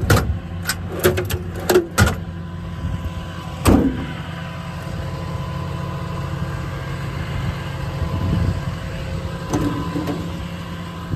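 Diesel engine idling steadily, with a few sharp knocks and clicks of metal storage drawers or compartment doors in the first two seconds and a louder knock about three and a half seconds in.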